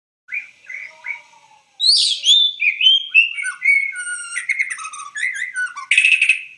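Bird chirping and calling: a few short calls, then a quick run of varied chirps and whistled notes that slide down in pitch, ending on a harsh rasping note.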